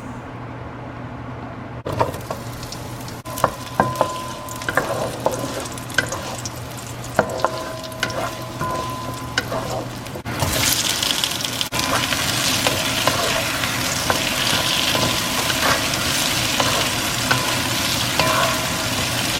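Cooking in a pan: a metal utensil clinks and scrapes against the cookware over a steady low hum. About ten seconds in, a loud, steady sizzle starts as food hits hot oil.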